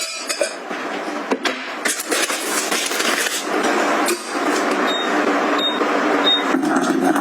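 Packaging and household items being handled and set down: continuous rustling with sharp clicks and knocks. In the second half come three short high beeps, evenly spaced.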